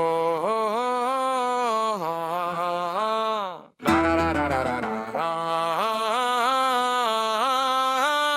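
Wordless vocal intro of an AI-generated (Suno) song: a single voice holds notes and steps between them in two phrases, with a short break a little before halfway.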